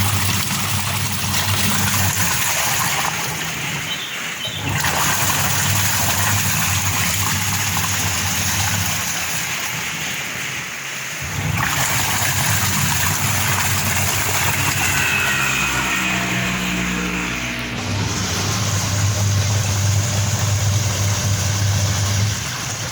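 LG washing machine running with water churning and its motor humming, in runs of several seconds that stop and start again; in one run the pitch falls as the motor slows.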